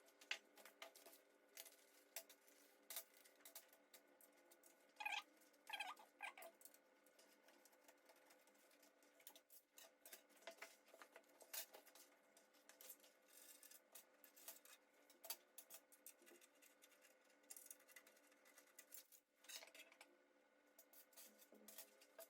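Faint scattered clicks, taps and light scrapes of small metal parts and screws being handled as a PC case is taken apart, with a faint steady hum underneath.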